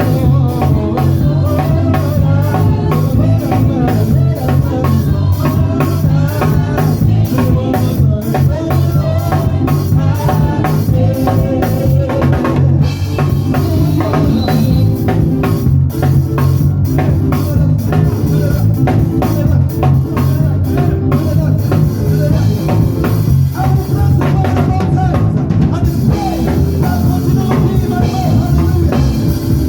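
Gospel praise and worship band playing an upbeat medley: drum kit with bass drum, snare and rimshots, over a heavy, prominent bass line and melodic instruments.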